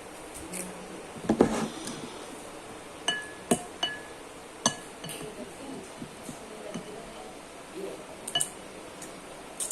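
Cutlery clinking against a dish while eating: a scatter of separate sharp clinks, some with a short ringing note, loudest about a second and a half in.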